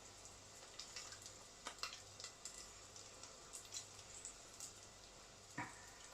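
Faint crackling sizzle of a frying pan on the hob, with a low steady hum under it and a few light clicks. A sharper knock comes near the end.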